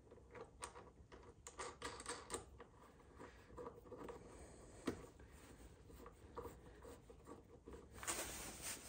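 Faint clicks and scrapes of small metal hardware being handled as a thick lock nut is fitted onto a bolt on the exhaust mounting bracket, with one sharper click about five seconds in.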